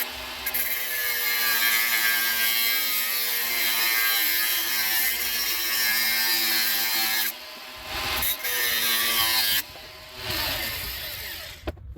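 Ratcheting tool working the seized bolts that hold the hydraulic pump's front cover on a JCB 3 Mk3 backhoe. It runs in one long spell of about seven seconds, then in two shorter bursts.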